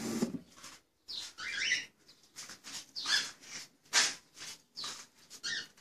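Cockatiels chirping: short, high calls coming irregularly, about two a second, some sliding in pitch.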